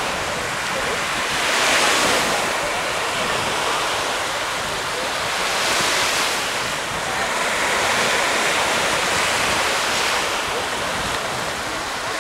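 Small Baltic Sea waves washing onto a sandy beach, the surf swelling and fading every few seconds, with wind buffeting the microphone.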